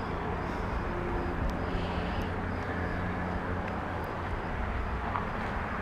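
Steady low rumble of motor traffic, with a few faint ticks over it.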